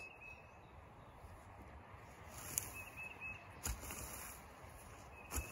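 Faint outdoor ambience with a few short, high bird chirps and three sharp knocks or handling sounds, the loudest about three and a half seconds in.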